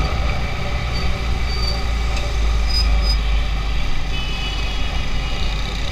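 A motorcycle riding in city traffic: its engine running under a steady low rumble of wind and road noise, with a few brief high-pitched tones partway through.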